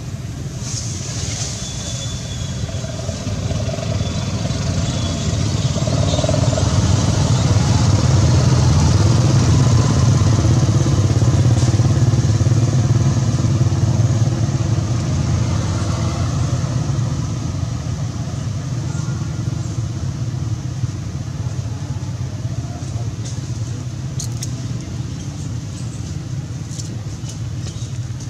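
A steady low rumble with a fainter hiss above it, growing louder about six seconds in and easing off again after about fifteen seconds.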